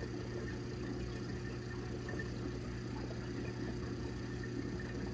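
Steady low hum with a faint hiss from reef aquarium equipment, such as the return pump and protein skimmer, running continuously.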